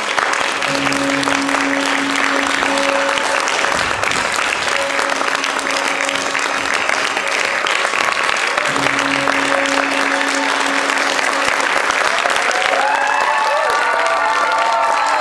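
An audience applauding steadily over background music with a held low note that comes and goes. Voices rise above the clapping near the end.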